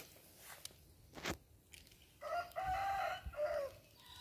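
A rooster crowing once, a drawn-out call of about a second and a half that falls away at the end. A few sharp clicks come before it in the first second and a half.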